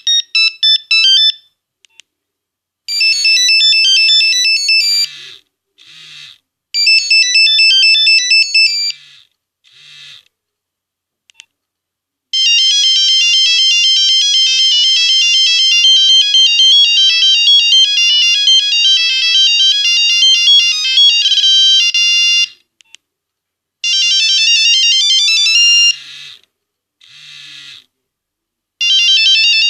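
Nokia 1101 mobile phone playing its built-in monophonic ringtones: bright, beeping single-note melodies, several short tunes one after another with brief silent gaps between them. A longer tune runs for about ten seconds in the middle.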